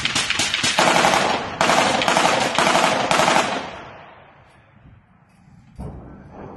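Close, rapid automatic gunfire in two long bursts, the second starting about a second and a half in, dying away in echoes by about four and a half seconds. About six seconds in, a single dull thump with a rumbling tail.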